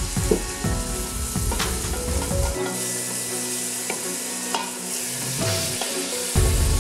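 Chopped leek and onion sizzling as they sauté in hot olive oil in a stainless steel pot, stirred with a wooden spoon that knocks and scrapes against the pot now and then.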